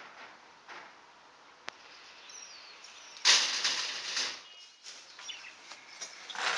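Knocking on a wrought-iron security screen door: a few light knocks, then a louder burst of rattling a little over three seconds in.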